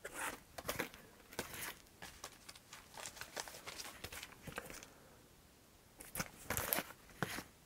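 Laserdisc jackets being handled and shuffled: cardboard sleeves sliding and rustling against each other in short, irregular scrapes, with a brief lull and then a louder flurry about six seconds in.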